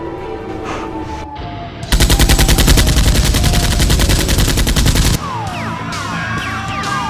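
A burst of rapid automatic gunfire, about three seconds long, starting about two seconds in and cutting off suddenly, over background music.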